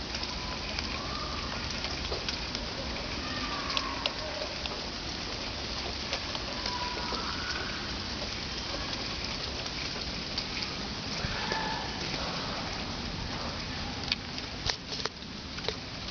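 Steady rain falling in a thunderstorm, an even hiss, with a few sharp taps near the end.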